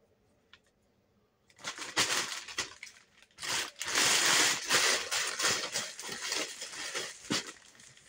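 Plastic bag rustling and crinkling as it is handled and packed. It starts about a second and a half in after a quiet moment and keeps on, loudest in the middle.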